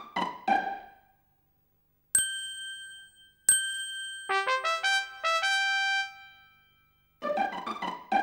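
Children's-show music and chime effects: a figure of short, quick notes fades out, then after a pause come two bright bell-like dings about a second apart, followed by a quick rising run of notes that rings out. The short-note figure starts again near the end.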